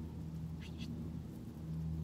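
Mallard ducks calling while being hand-fed: two short, high-pitched calls about three-quarters of a second in, over a steady low hum.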